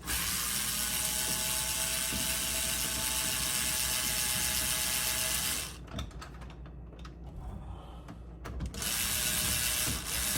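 Electric screwdriver driving screws: a steady motor whine for about six seconds, a pause with a few small clicks, then a second run starting near the end.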